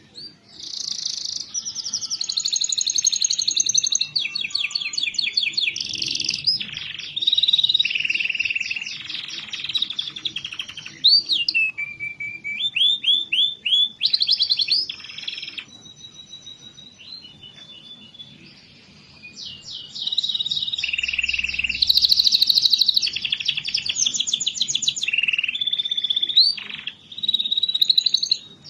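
Domestic canary singing a long, varied song of fast trills, rolls and sweeping notes, each phrase switching to a new pattern every second or two, with a quieter stretch a little past the middle.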